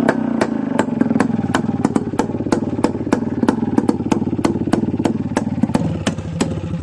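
An engine running steadily, with sharp regular clicks about two or three times a second over it.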